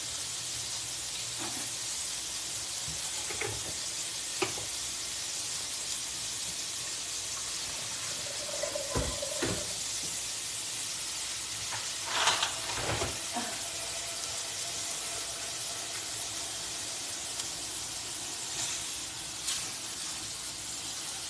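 Chicken pieces sizzling steadily in a hot nonstick skillet, a high, even frying hiss. There are a few light clicks and a short squeal partway through, and a spatula works the pieces near the end.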